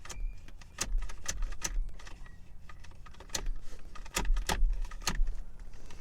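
A series of sharp metallic clicks and clatters at irregular intervals from a seatbelt retractor and its belt hardware being worked by hand. The retractor is locking up and won't let the belt go.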